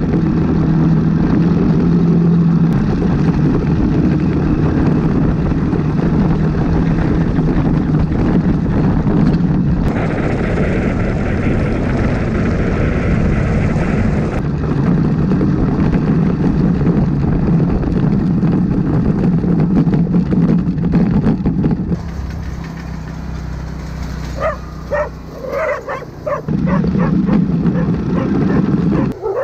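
Motorcycle engine running steadily under way, then dropping to a quieter, lower run about two-thirds of the way through. A dog barks repeatedly near the end.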